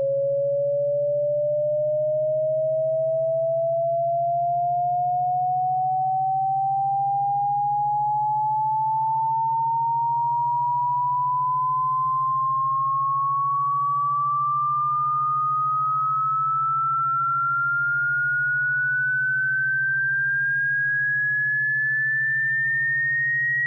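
Electronic sine-wave tone slowly and steadily rising in pitch, from a mid whistle to a high one, over a low steady hum: a synthetic sweep played as a cat-repellent sound.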